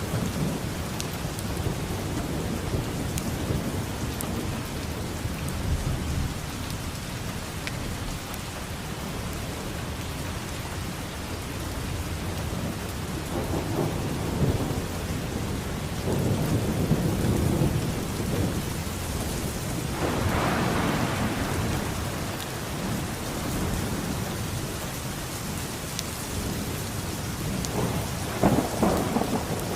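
Steady heavy rain falling in a thunderstorm, with rolls of thunder rumbling through it, the loudest swells about halfway through and near the end.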